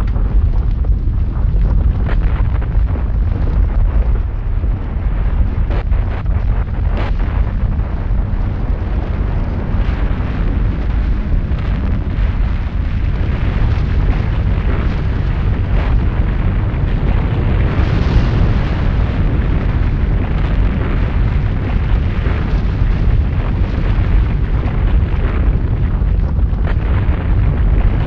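Loud, continuous deep rumble with scattered sharp cracks through it, an explosion- or fire-like sound effect.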